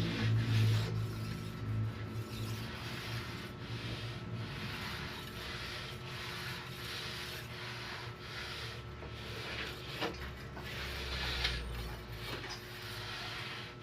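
Repeated rasping, rubbing strokes, steel worked back and forth by hand while a thickness-planer blade is being sharpened. A low hum fades away over the first few seconds.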